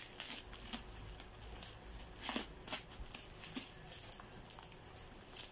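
Faint crinkling and scattered small crackles of bubble-wrap packaging being handled and pulled off a cardboard box.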